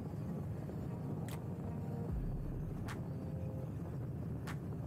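Steady low wind and road rumble on an electric moped, picked up by a camera riding on it. A sharp tick sounds about every second and a half, three times.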